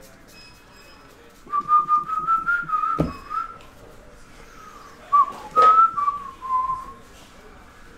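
A person whistling a short tune in two phrases, one pure wavering note line with pauses between. A sharp knock sounds about three seconds in, and a lighter tap partway through the second phrase.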